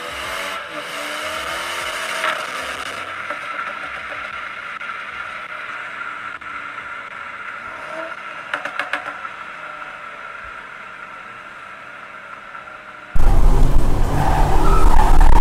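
Cabin noise of a 2021 BMW 330i on the move: its 2.0-litre turbocharged four-cylinder and road noise, with a steady high hum and a few quick clicks a little past the middle. Loud music cuts in about 13 seconds in.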